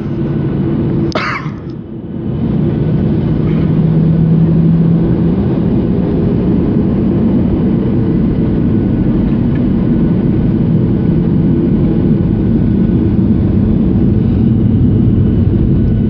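Steady low rumble of a jet airliner's turbofan engines heard inside the cabin while taxiing. About a second in there is a short sharp noise and the rumble briefly dips, then it settles back to a steady drone.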